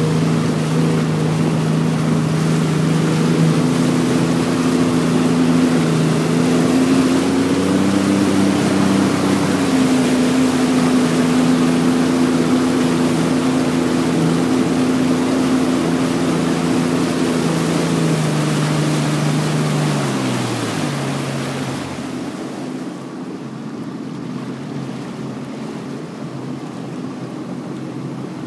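A motor running at a steady speed over a rushing noise. About eighteen seconds in, its pitch falls as it slows, and from about twenty-two seconds it is lower and quieter.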